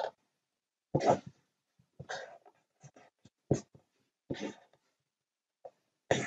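Felt-tip marker drawing straight lines on paper: a series of short scratchy strokes, about seven in all, each lasting well under half a second with pauses between.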